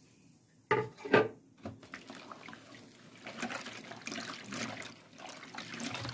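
Hands working a wet chermoula marinade in a plastic bowl, an irregular squishing of liquid, herbs and spices. Two sharp knocks come about a second in.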